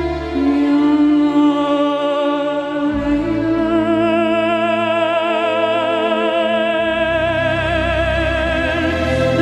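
Slow music with long held notes. The melody wavers in a vibrato over low bass notes that change every few seconds.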